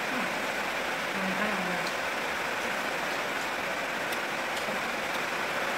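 A steady, even hiss of background noise, with a faint voice heard briefly about a second in.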